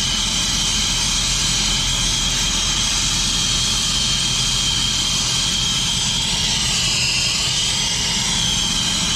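Brazing torch flame burning with a steady hiss while it heats a brazed copper refrigerant joint on a compressor to unbraze the pipe. The hiss wavers briefly about seven seconds in.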